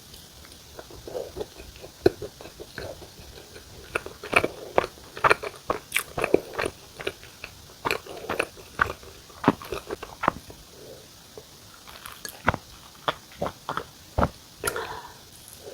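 Close-up chewing of a soft red bean bun filled with walnuts: wet mouth noises with many irregular sharp crunches, busiest in the middle.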